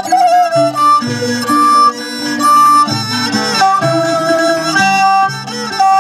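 Northern Thai salo-so-sueng folk ensemble: plucked sueng lutes accompany held melody notes from a salo fiddle, while a man sings in the so style.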